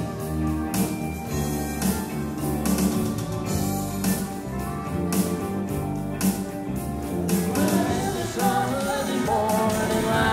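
Live pub band playing: a drum kit keeps a steady beat under bass, keyboard and electric guitars. From about eight seconds in, a wavering melodic line comes in over the top.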